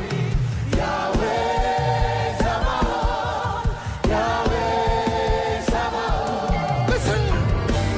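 Gospel worship music: a choir singing over a band with a steady drum and bass beat.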